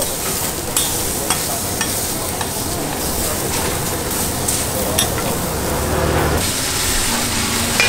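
Beef steaks sizzling on a hot flat-top iron griddle, a steady frying hiss. A few sharp clicks come from a metal spatula scraping and tapping the plate as the meat is turned.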